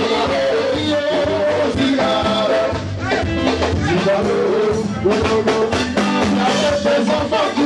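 Zouglou music played live, with men singing into microphones over a steady, danceable beat.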